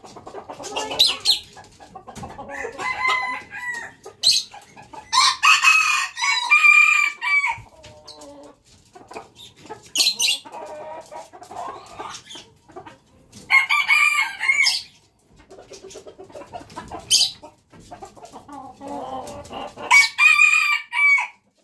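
Jungle fowl rooster crowing three times, with shorter sharp calls and clucking between the crows.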